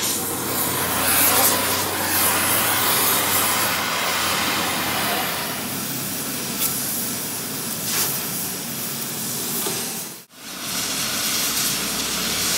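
Oxy-fuel cutting torch hissing steadily as it heats and cuts the steel of a rear axle housing, with a brief break about ten seconds in.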